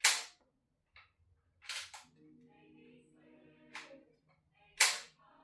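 Crosman M4-177 multi-pump air rifle being fired, giving sharp pops of air, with two loud ones about five seconds apart and two quieter ones between. No BB leaves the barrel: the rifle is failing to feed BBs.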